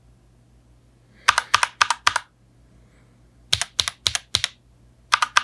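Keys of an RK Royal Kludge mechanical keyboard fitted with RK Yellow switches being typed in short bursts of rapid clacks, about a second each: one about a second in, one in the middle, and another starting near the end. This is a sound test of how the same switch sounds in a gasket-mount versus a plate-mount case.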